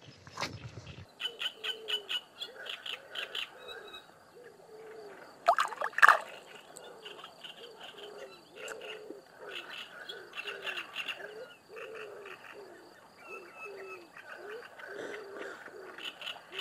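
Frogs croaking in the reeds: short croaks repeating about once or twice a second, over a fainter high rapid chirring. Two short, sharper, louder calls come about six seconds in.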